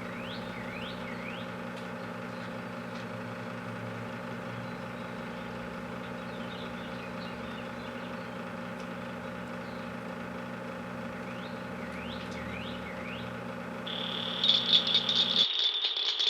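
Microwave oven running with a watermelon inside, giving a steady electrical hum. Near the end a loud, high-pitched rattling buzz comes in and the hum stops suddenly.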